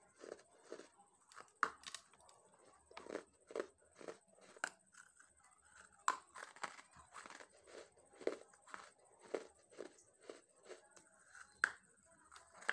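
Dry red clay lumps being bitten and chewed right at a clip-on microphone: a steady run of gritty crunches about two a second, with a few sharper snaps as pieces break off.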